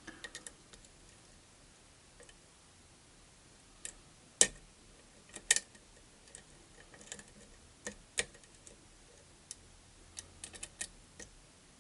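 Lock pick and tension tool working inside a challenge lock: scattered, irregular sharp clicks, the loudest about four and a half, five and a half and eight seconds in.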